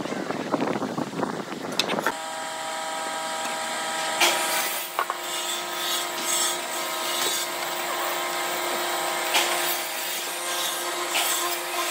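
Pencil scratching on wood for about two seconds, then a benchtop hollow-chisel mortiser's motor running with a steady whine, with a few light knocks.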